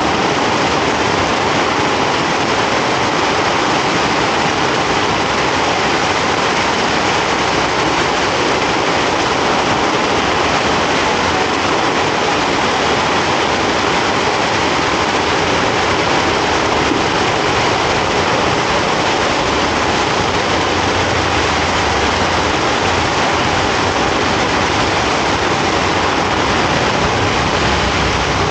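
Heavy rain pouring onto a city street, a steady loud hiss. The low sound of vehicles passing on the wet road mixes in, a little stronger about two-thirds of the way through.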